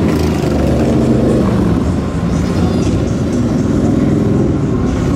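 Fire trucks going by on a city street: a loud, steady engine rumble with their sirens sounding.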